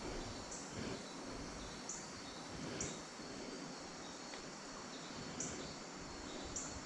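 Insects droning steadily in the bank vegetation, with short high chirps repeating about once a second, over the faint rush of the flowing river.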